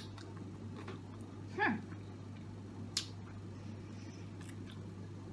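Quiet room with a steady low hum, broken by one brief, short vocal sound about a second and a half in and a couple of small clicks.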